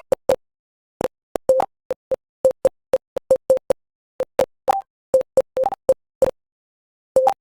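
Typing-practice program's keystroke sound effects: short beep-like blips, about three or four a second in uneven runs, some with a higher second note. The runs pause briefly a few times.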